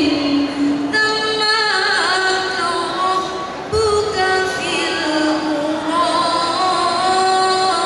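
Female voices of a maulid habsyi group singing a sholawat melody, the line wavering and ornamented. A single low thump just before the four-second mark.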